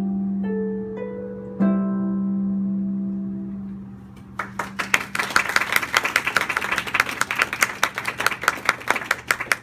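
Large concert harp playing the closing notes of a piece: a few plucked notes, then a final chord about one and a half seconds in that rings and fades away. From about four and a half seconds in, a small audience applauds.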